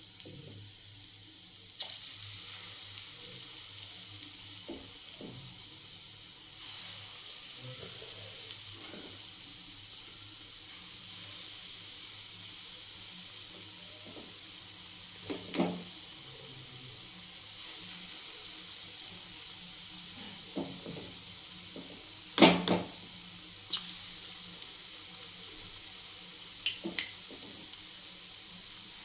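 Pakora batter frying in hot mustard oil in a kadhai: a steady sizzle that grows louder about two seconds in and again around seven seconds in as more batter goes into the oil. A few sharp knocks come through it, the loudest about two-thirds of the way through.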